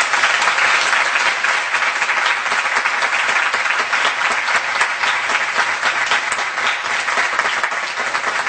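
A group of people applauding: dense, steady clapping.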